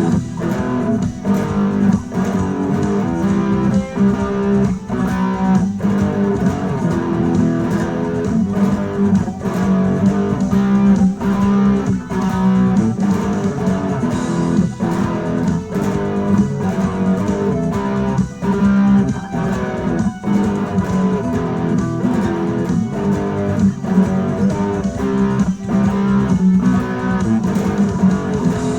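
Electric lead guitar playing over a full rock backing track, with a steady drum beat and bass.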